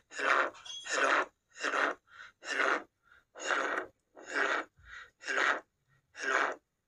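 A man's recorded voice saying 'hello' over and over, about once a second, played back through a smartphone's speaker: a test recording made with a homemade collar microphone built from an old headphone's mic.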